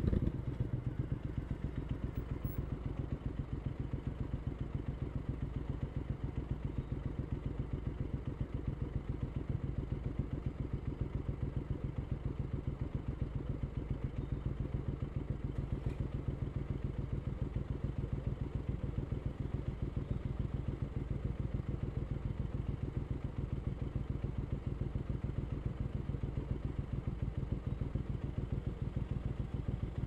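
Triumph Scrambler 900's parallel-twin engine breathing through an Arrow aftermarket exhaust. The engine settles to idle within the first second and then idles steadily with an even, fast pulsing beat while the bike waits at a stop.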